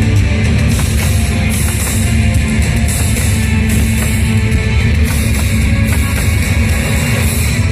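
Loud rock music with drums and guitar, the soundtrack of a fireworks show played over its sound system.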